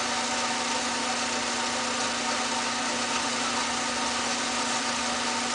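Draft blower fan of a homemade gasification wood boiler running steadily, giving a constant hum over a rush of air while the boiler fires at full burn.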